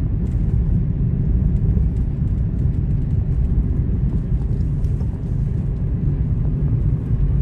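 Car driving at steady speed: a continuous low rumble of road and engine noise heard from inside the cabin.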